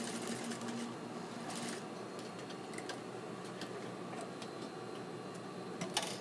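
Industrial sewing machine running steadily, stitching a tuck along the fabric toward the match point, with a sharp click near the end.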